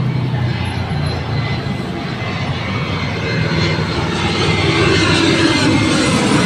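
Street traffic: a motor vehicle's engine running, growing louder over the last couple of seconds.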